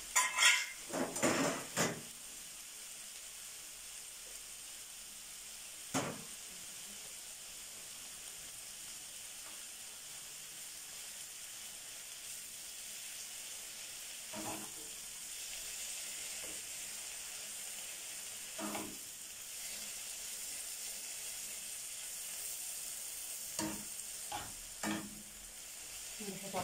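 Liver and grated tomato sizzling steadily in a frying pan on a gas burner, with a spoon knocking and scraping against the pan as it is stirred. The knocks come in a quick cluster in the first two seconds, then singly now and then.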